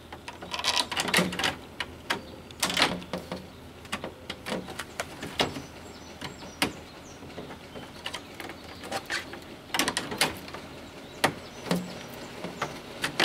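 Plastic grille parts and retaining clips of a Ford Maverick being handled and worked into place: irregular clicks, knocks and rustling.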